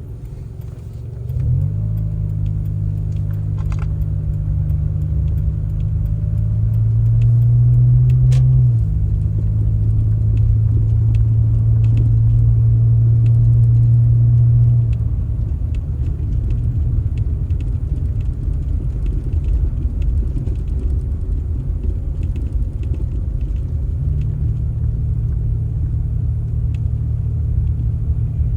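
An engine running steadily with a low rumble, picking up about a second and a half in and easing off a little around fifteen seconds.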